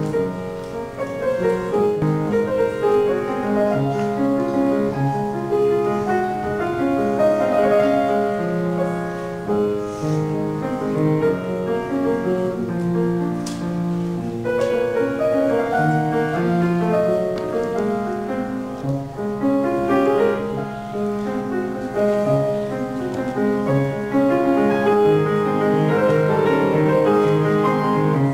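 Grand piano played solo: a continuous piece of notes and chords.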